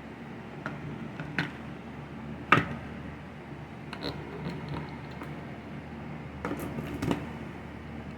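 Scattered sharp clicks and knocks of hand tools and metal saw parts being handled, the loudest about two and a half seconds in and a few more close together near the end, over a steady low hum.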